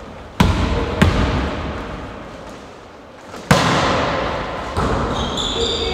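Volleyball struck by hand: two sharp smacks about half a second apart, then a louder smack about three and a half seconds in, each ringing out through a large sports hall. A few short high squeaks near the end.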